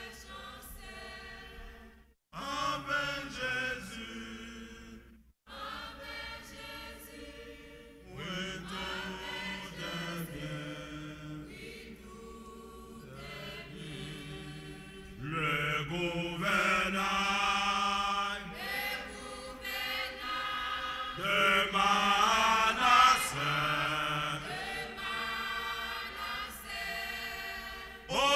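Women's church choir singing a hymn together, with two brief breaks in the first six seconds and growing louder from about halfway through.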